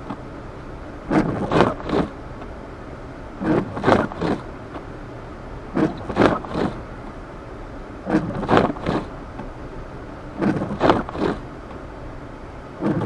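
Windshield wipers sweeping through snow. Each pass is a short rasping scrape that repeats about every two seconds over steady in-cab road and engine noise.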